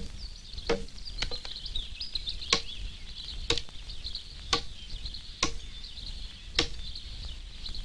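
Axe blows striking log timber, about nine sharp chops at roughly one a second, with small birds chirping in the background.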